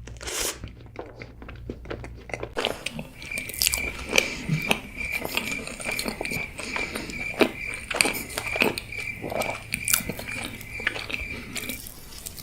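Close-miked mukbang eating: bites, chewing and the clink of cutlery on a plate, as a series of short sharp clicks and crunches. A faint steady high tone runs under most of it.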